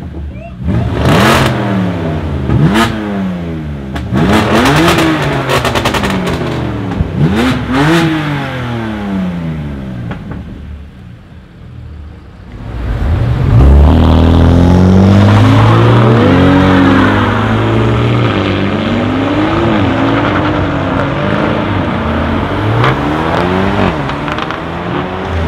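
BMW M2 Competition's twin-turbo straight-six, fitted with TTE740 turbochargers and an Akrapovic exhaust with downpipes, revved hard while standing. There are about five quick revs, each rising and falling, with crackles and pops as the revs drop. After a short lull a loud, steadier engine note takes over, rising and falling more slowly.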